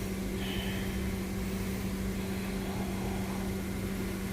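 Steady low mechanical hum, with a short high-pitched beep about half a second in.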